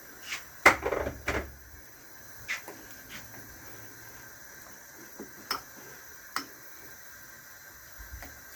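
A spoon knocks and scrapes against a bowl while mashing lumpy ground egusi paste. There is a quick cluster of knocks about a second in, then a few single knocks spaced out.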